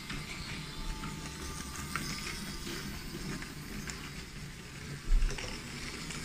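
Battery-powered wooden toy train running on wooden track: a steady mechanical whir with scattered small clicks. A loud low thump about five seconds in.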